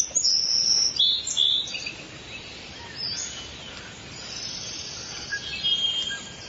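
Birds chirping and singing in short high calls. The calls are loudest in the first second and a half and again near the end, over a faint hiss.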